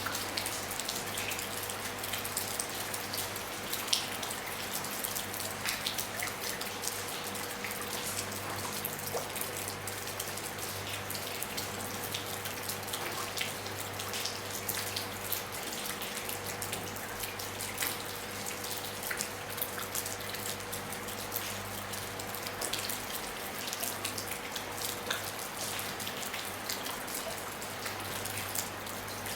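Rain falling on a roof: a steady patter with many individual drops striking, one a little sharper about four seconds in. A faint steady hum runs underneath.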